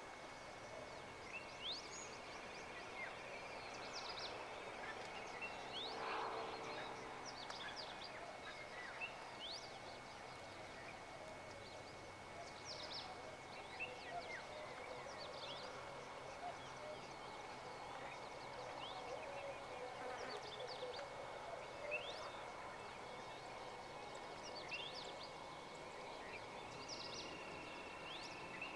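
Outdoor ambience of many small birds giving short, high chirps, scattered throughout, over a steady high whine and a low background hum. A brief, lower pitched call sounds about six seconds in.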